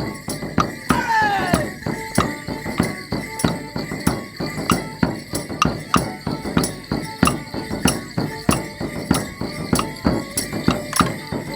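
Border Morris dance music with a steady beat of sharp strikes, about three a second. A short sliding high note falls away about a second in.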